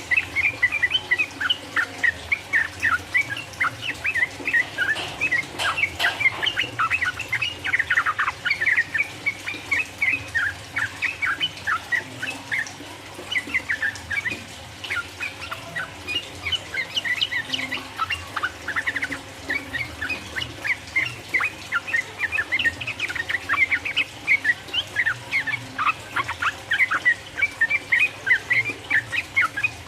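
Yellow-vented bulbul singing a long, rapid run of chirping notes, easing off briefly about halfway through before picking up again.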